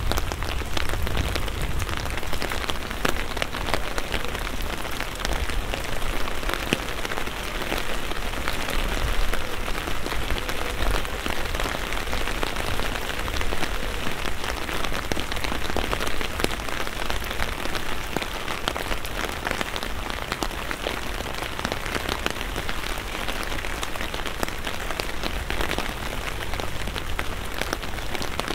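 Steady rain, with many separate drops tapping on an umbrella overhead over the continuous hiss of rain on a wet street.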